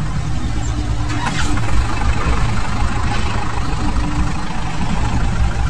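Preet 6549 tractor's engine running steadily under load while it pulls and powers a straw reaper through wheat stubble, the reaper adding a steady rushing machine noise.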